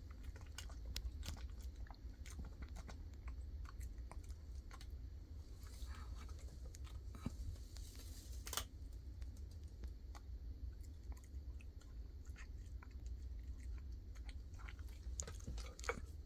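A pet chewing and crunching rotisserie chicken: irregular sharp clicks and crunches over a steady low hum.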